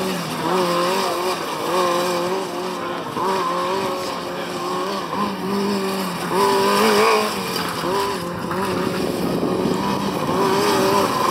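Formula Student race car engine revving up and dropping back again and again as the car accelerates and slows between tight cones.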